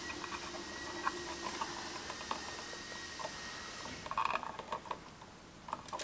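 Faint scattered clicks and light rustles of hands handling a bare copper ground wire and a plastic GFCI receptacle, with a denser run of small clicks about four seconds in. A steady faint hiss underneath stops at about the same point.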